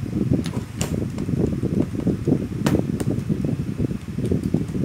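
Steady low rushing of a fan blowing across the microphone, with four light sharp clicks, one about half a second in, one near one second and two close together near three seconds, from a screwdriver and hands working on a transformer's steel core and mounting frame.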